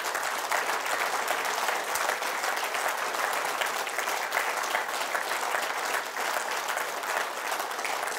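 Audience applauding: a dense, steady patter of many hands clapping that carries on throughout.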